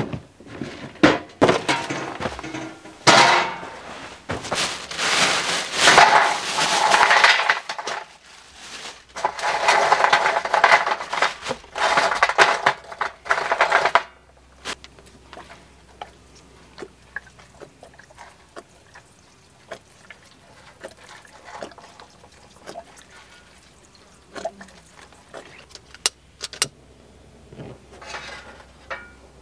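Loud clattering and rattling in several bouts that stops abruptly, as lump charcoal is handled and tipped into a small steel barbecue tray. After that come faint scattered clicks and knocks as the lumps are set in place by hand.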